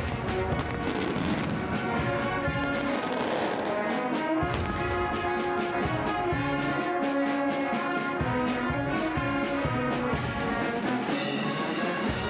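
Brass band music, with held brass notes and frequent sharp percussive hits.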